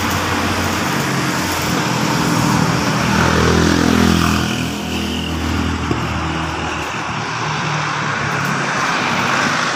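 Motor vehicle engine running loudly close by amid street traffic, its pitch sweeping down and up about three to five seconds in.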